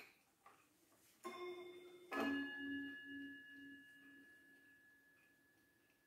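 Antique mantel clock striking its gong: two struck notes about a second apart, the second louder, ringing out and slowly fading with a low pulsing hum, set off as the hands are turned on the dial. A light click comes just before the first note.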